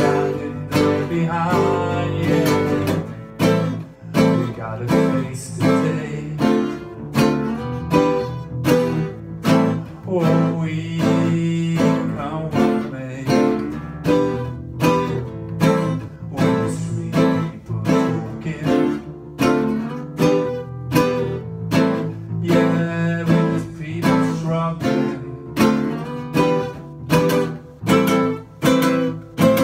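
Acoustic guitar strummed in a steady, even rhythm, an instrumental passage of a song.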